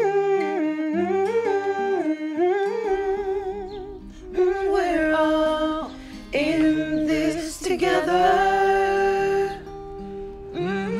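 Background music: a wordless voice sings a slow, sliding melody with vibrato over a plucked guitar. It swells louder and fuller about halfway through, then eases off near the end.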